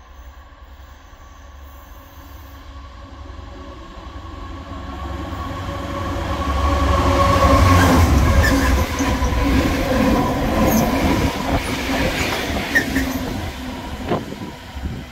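A convoy of diesel freight locomotives running light, four Class 66s with their EMD two-stroke engines and a Class 70, approaching and growing louder to pass close by about halfway through. The engines run with a deep rumble, and the wheels click sharply over the track as they go by. The sound fades as they draw away near the end.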